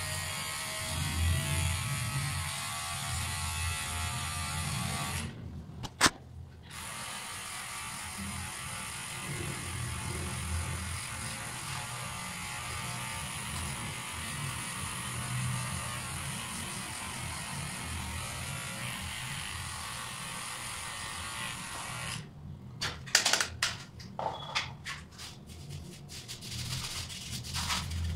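Electric hair trimmer buzzing steadily as it cuts hair, stopping briefly with a sharp click about five seconds in, then running again until about three-quarters of the way through. After it stops, short rustles and taps as hands rub through the freshly cut hair.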